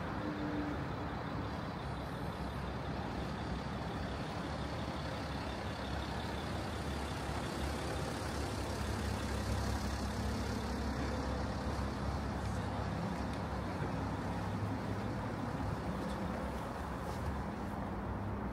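City street traffic: a steady hum of road noise, with a low engine rumble from a passing heavy vehicle that builds through the middle and eases near the end.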